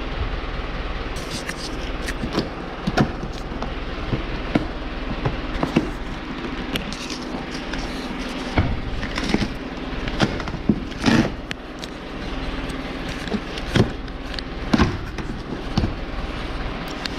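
Scattered knocks, scrapes and rustles as a cardboard winch box is handled on a wooden bench and its plastic packing straps are pulled off, over a steady low hum.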